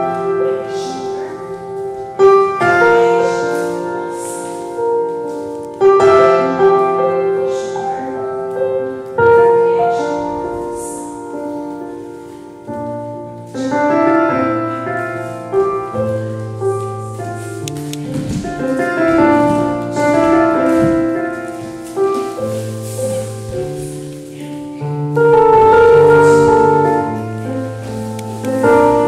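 Slow piano music: chords struck every second or two and left to ring, with held low bass notes coming in about 13 seconds in.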